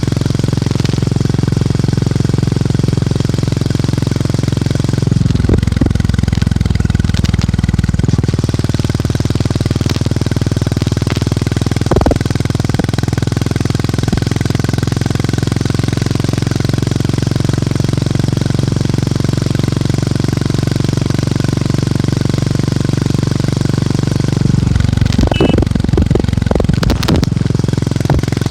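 Motorcycle engine and exhaust running steadily on the move, with a low thump. The engine note changes briefly twice, about five seconds in and again near the end.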